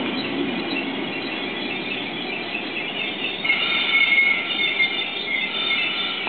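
High-pitched metallic squeal from a slow-moving electric passenger train, steel wheels on rail. It is a few steady shrill tones over a low rumble, growing louder about halfway through.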